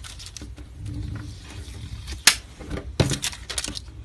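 Paper and plastic rustling and crinkling as the backing sheet is peeled off adhesive holographic sign vinyl and handled on wax paper. There is one sharp tick a little after halfway and a run of small crackles and clicks near the end.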